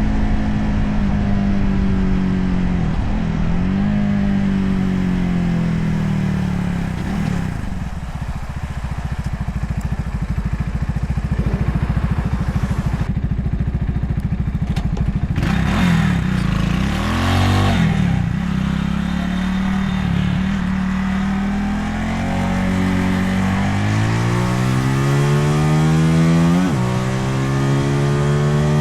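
Motorcycle engine running while riding, its pitch climbing and dropping sharply with each gear change, easing off in the middle, then accelerating through the gears near the end, over road and wind noise.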